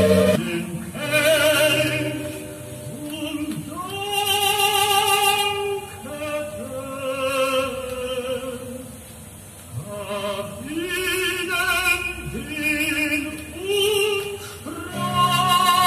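Classical vocal music played from a vinyl LP on a turntable: a singer holding long notes with vibrato, one after another with short breaks between phrases.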